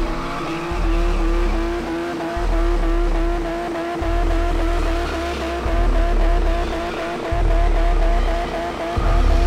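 BMW drift car's engine held at steady high revs, its pitch wavering slightly, with the rear tyres spinning in a smoky burnout. A deep music bass pulses on and off underneath about every one and a half seconds.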